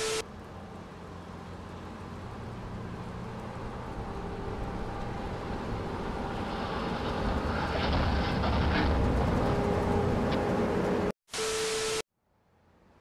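Rumbling vehicle noise on a security camera's microphone, growing steadily louder for several seconds. It is loudest about two-thirds of the way in, with a run of rattling clicks, then cuts off. A short burst of TV-static sound effect with a steady tone plays at the start and again near the end.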